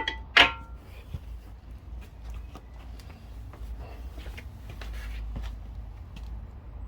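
Metal parts handled during brake work: one sharp metallic clink with brief ringing about half a second in, then soft scattered clicks and rustling over a steady low hum.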